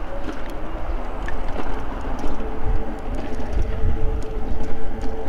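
Electric bike's hub motor whining as the bike pulls away from a stop and gathers speed, the whine climbing and then holding steady. Wind rumble on the microphone underneath, with small ticks from the tyres on the pavement.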